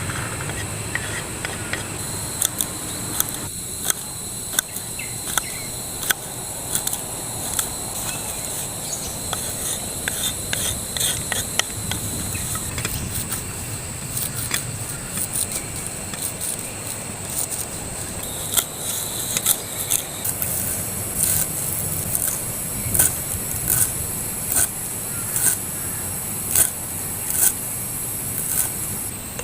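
Steady high-pitched insect chorus, with a string of short scrapes and taps roughly once a second over it.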